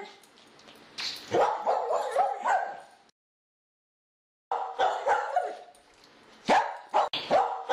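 A dog barking in quick runs of short barks. The sound cuts to dead silence for about a second and a half, three seconds in, then the barking resumes.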